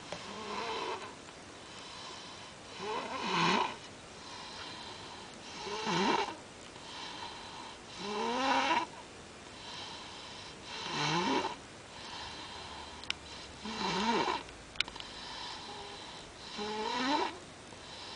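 Young child snoring in his sleep: six loud snores, one about every two and a half to three seconds, each with a wavering, sliding pitch, with softer breathing between them.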